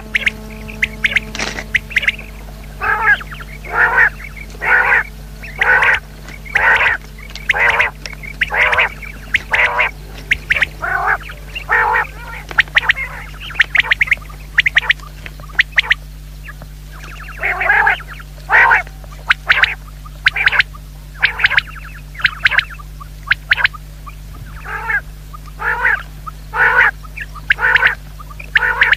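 Common quail calling over and over, a short harsh call repeated about once a second, with a brief pause around the middle before the calls resume. A steady low hum runs underneath.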